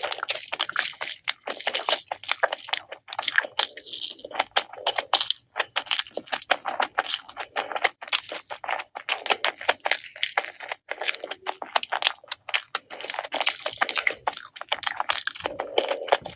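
Close-up crunching and chewing of crispy fried chicken lollipop: a dense, irregular run of sharp crackles with no pauses.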